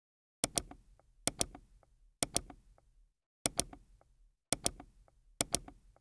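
Computer mouse clicking: six double-clicks, roughly one a second.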